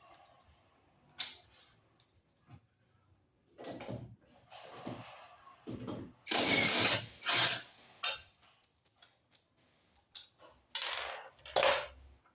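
Mechanic's tools at work on a car's front hub and steering knuckle: a string of irregular clicks and short bursts of tool noise, the loudest about six to seven and a half seconds in.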